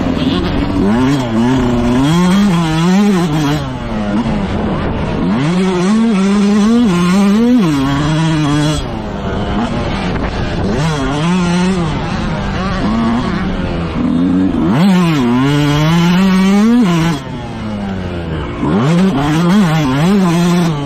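Motocross bike engine racing: revving hard and backing off over and over, the pitch climbing through the gears and falling away each time the throttle is shut.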